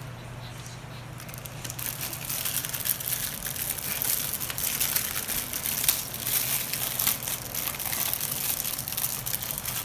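Clear plastic packet crinkling as it is handled and pulled open with the fingers, in a continuous stream of small crackles that starts about a second and a half in.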